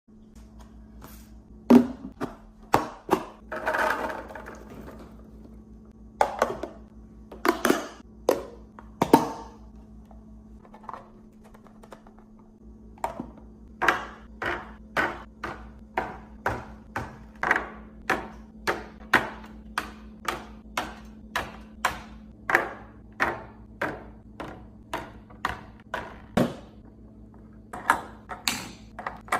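Containers, jars and bottles being set down on fridge shelves and door racks, one after another, in sharp taps, clinks and thunks. The placements are scattered at first, with a longer rustle about four seconds in, then settle into a steady pace of about one or two a second through most of the second half. A steady low hum runs underneath.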